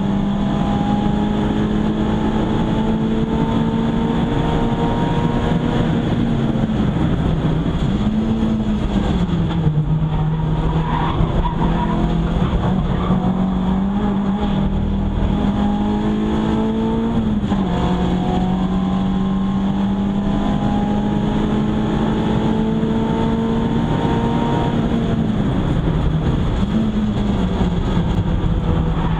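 Renault Clio 172's 2.0-litre four-cylinder engine running hard at track speed, heard inside the cabin. Its pitch drops and climbs again several times, over steady road and wind noise.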